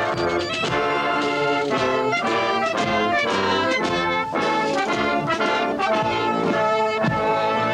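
Military brass band of trombones, trumpets and sousaphones with drums playing a march, the notes falling on a steady beat about twice a second.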